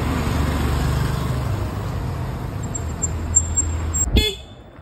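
Motorcycle and car traffic on a city street, with a steady low engine rumble from passing motorbikes. About four seconds in there is a short sharp sound, after which it drops much quieter.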